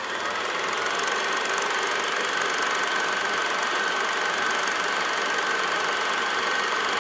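Film projector running: a steady, fast mechanical clatter with a faint high whine. It fades in just before and stops shortly after the title card.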